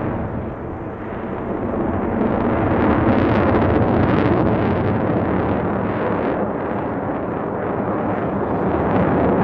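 Jet noise of a single-engine F-16 Fighting Falcon flying a display overhead: a steady, rushing rumble that dips slightly about half a second in and swells again from about two seconds in.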